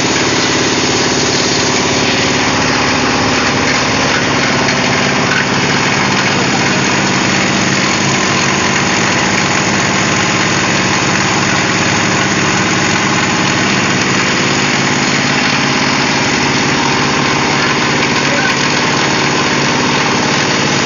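Diesel engine of a plastic shredder running steadily and loud, with no change in speed.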